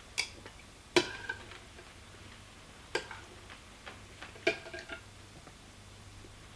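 A few sharp, separate clicks and light taps over a faint steady hum, some followed by a brief ringing tone, like a hard object knocking on a dish.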